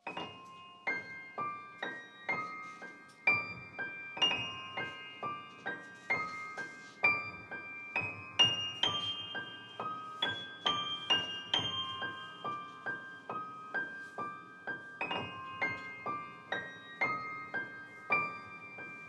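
Piano music: a slow melody of single struck notes, about two a second, each left to ring and fade.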